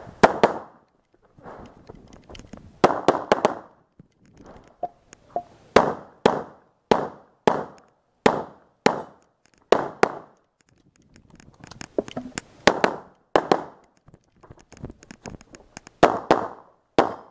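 Semi-automatic pistol shots fired in a practical-shooting stage, mostly in quick pairs about half a second apart, two shots per target. Each report is sharp with a short ringing tail, and the groups are separated by short pauses while the shooter moves between positions.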